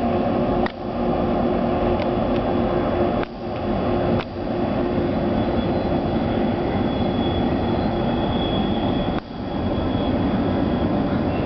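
Double-stack container train rolling by: a steady rumble of wheels on rail that dips sharply and briefly several times, with a faint high-pitched ring for a few seconds past the middle.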